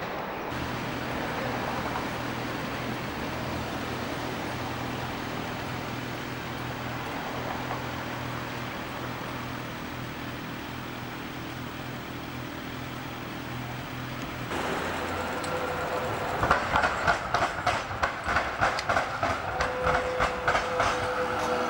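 Melbourne street tram running on its rails. A steady low hum fills the first two-thirds. Then a tram passes close by, its wheels clacking quickly over rail joints and points, with a thin steady tone near the end.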